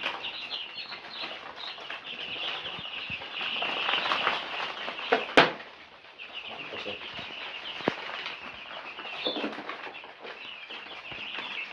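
A flock of four-day-old broiler chicks peeping constantly in many overlapping high chirps, with handling noises and a sharp knock about five seconds in.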